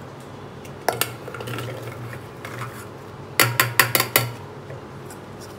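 Steel bowl clanking against the rim of an aluminium pressure cooker as chopped onions are tipped in, with a rattle of onion pieces sliding out, then a quick run of about five sharp metallic knocks as the upturned bowl is knocked against the cooker to empty it.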